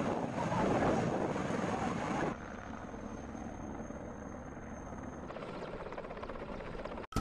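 Military helicopters' rotor and turbine noise, a steady rush of sound spliced from several clips: louder for the first two seconds, then cutting abruptly to a quieter helicopter, with another change about five seconds in.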